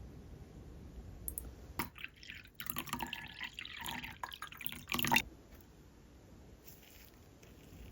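Water dripping and splashing in a run of irregular small knocks and splashes lasting about three seconds, loudest near the end, after a single click.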